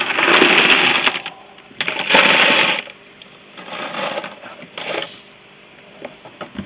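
Small metal screwdriver bits rattling and clinking together as they are stirred or shaken in a container: two long, loud clatters, then two shorter, quieter ones.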